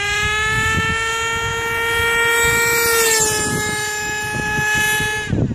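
HPI Savage X 4.6 RC monster truck's single-cylinder two-stroke nitro engine held at high revs, a steady high-pitched whine with tyre rumble beneath. The pitch dips slightly about three seconds in as the truck goes past, and the engine note drops off and stops abruptly near the end.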